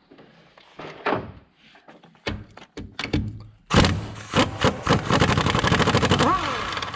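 A power wrench on a long socket extension takes a master cylinder mounting nut off the brake booster. A few knocks and clicks come first as the socket goes on, then, about four seconds in, the wrench runs in a fast, loud rattle for about three seconds.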